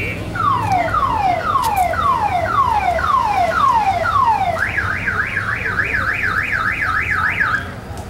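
Car alarm siren cycling through its tones: a run of falling whoops about two a second, then a fast up-and-down warble for about three seconds, which cuts off near the end.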